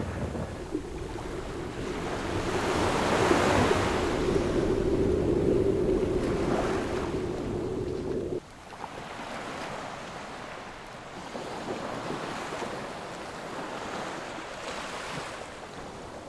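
Surf washing onto a beach in rising and falling swells, with wind buffeting the microphone. About eight seconds in the sound drops suddenly to quieter surf.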